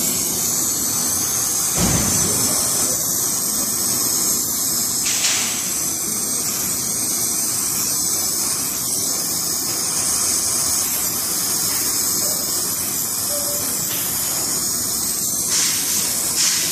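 Oxy-fuel brazing torch flame hissing steadily while it heats a copper pipe joint for silver brazing.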